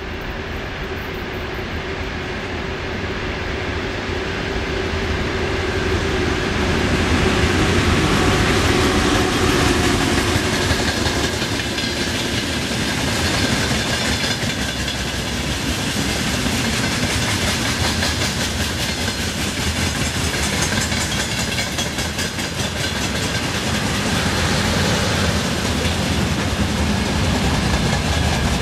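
VL10U DC electric locomotive hauling a freight train approaches and passes, growing louder to a peak about eight seconds in, with a steady hum that fades out soon after. Then the freight wagons roll past with a steady rumble and wheel clicks over the rail joints.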